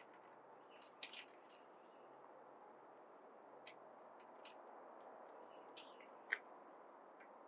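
Light scattered clicks and ticks from a plastic mesh eel trap and its spring clips being handled: a quick cluster about a second in, then single ticks every second or so, over a faint steady hiss.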